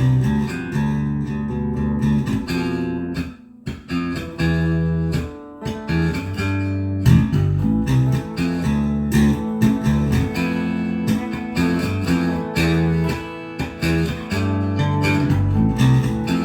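Electric bass guitar being played: a run of plucked notes in the low register, with a short break about three and a half seconds in.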